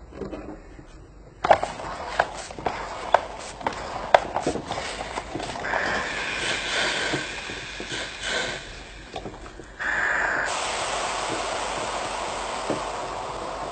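Small plastic toys being handled, with a run of clicks and taps, then a steady hissing noise from about ten seconds in.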